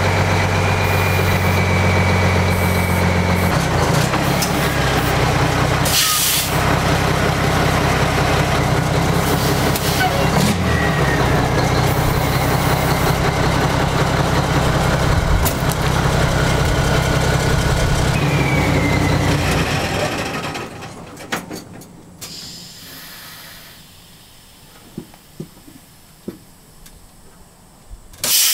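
Heavy Mack truck's diesel engine idling steadily, then shutting down about twenty seconds in. A short hiss of air sounds about six seconds in.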